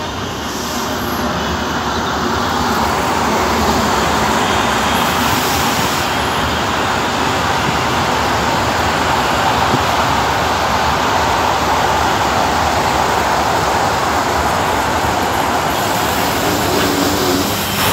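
Steady rush and rumble of an Abu Qir suburban train running along the track, heard from aboard a train with another train close alongside.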